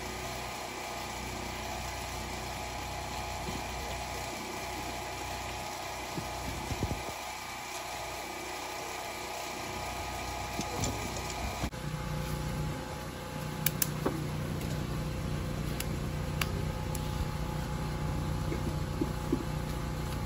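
A steady mechanical hum, like a small motor or engine running, that changes abruptly about twelve seconds in to a lower, steadier drone, with a few sharp clicks after the change.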